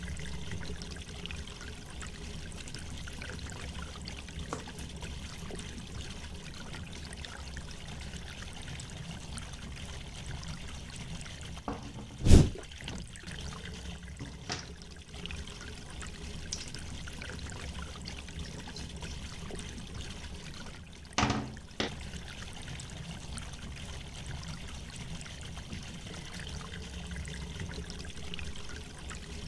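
Steady background hiss and low hum, broken by one sharp, loud knock about twelve seconds in and two smaller knocks about nine seconds later, as objects are handled and set down on a wooden tabletop.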